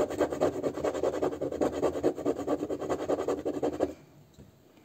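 Scratch-off coating of a paper instant lottery ticket scraped with a small yellow disc in quick back-and-forth rasping strokes. The coating comes off poorly. The scraping stops abruptly about four seconds in.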